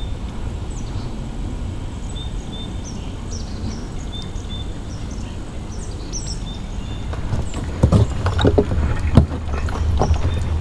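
Footsteps knocking on a wooden boardwalk, about two a second, starting about two-thirds of the way through. Under them runs a steady low rumble, and small birds give short high chirps now and then.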